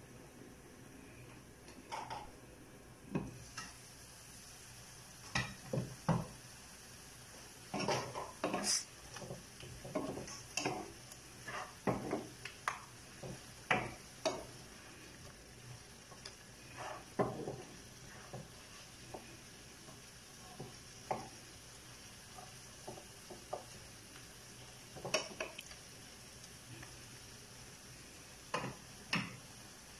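Wooden spoon knocking and scraping against a nonstick frying pan as cubes of pork belly are stirred and turned, with a glass pan lid clinking. The knocks are short and irregular, thickest in the middle and again near the end, over a faint steady sizzle from the pan.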